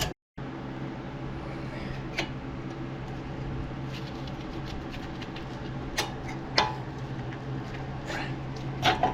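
Steady low mechanical hum, like a fan running, with a few sharp clicks and light taps about two seconds in, twice around six seconds in, and near the end.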